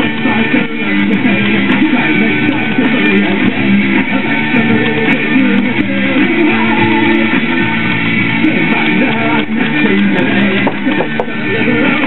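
Background music with guitar playing steadily.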